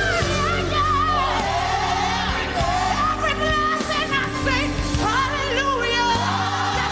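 Live gospel singing: a solo voice in wordless runs, sliding and wavering in pitch, over sustained band chords.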